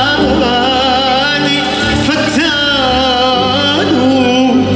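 Male voice singing a long, ornamented Arabic vocal line with vibrato and a rising glide about two seconds in, over instrumental accompaniment with held low notes that change about three seconds in.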